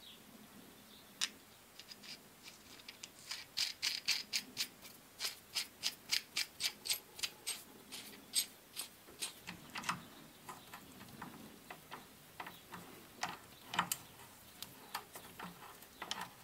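Fichtel & Sachs Torpedo three-speed hub ticking as its shell is turned by hand: a run of sharp, irregular clicks from the freewheeling pawls, thickest in the middle few seconds and thinning out near the end.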